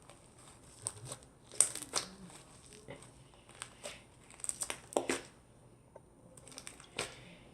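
Hands kneading and stretching an icy-type slime as lotion is worked in, giving clusters of small crackles and pops about a second in, around two seconds, near five seconds and once more near the end. The slime has turned sticky from the lotion.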